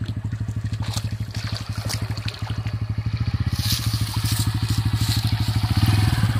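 Bajaj Pulsar N160's single-cylinder engine running at low revs with an even putter as the bike rolls down a rutted dirt track, the tyres crunching over dirt and stones. The engine gets louder near the end as the bike reaches the water.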